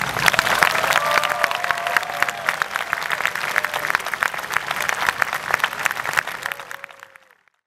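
Audience applauding, a dense crackle of many hands clapping, fading out near the end.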